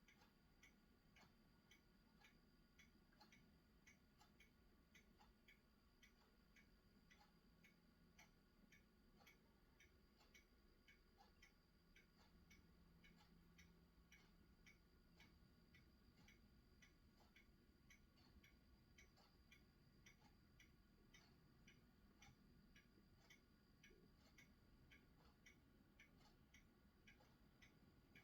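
Near silence with faint, regular ticking, about two ticks a second, over a faint steady hum.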